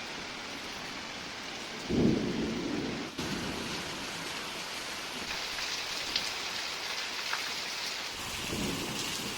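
Steady rain falling, a constant hiss with a few separate drop ticks. About two seconds in, a brief louder low rumble lasts about a second, with a weaker one near the end.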